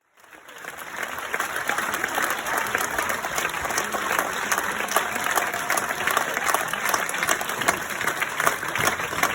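A large crowd giving an ovation: dense, continuous hand-clapping with voices shouting in the mix, fading in over about the first second and then holding steady.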